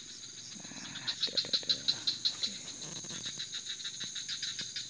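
Night-time insect chorus: a steady high trill with a rapid pulsing call over it, about five pulses a second. Faint rustling and a few soft clicks from handling the hooked catfish and fishing gear sit underneath.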